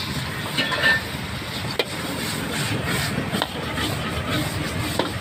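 Stir-frying in a wok over a gas burner: a steady sizzle and burner rush, broken by a few sharp clanks of the metal spatula against the wok.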